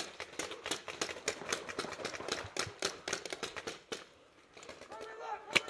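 Paintball markers firing in rapid strings of pops, several a second, with paintballs smacking against the bunker. The popping dies down about four seconds in, then louder, closer shots start just before the end.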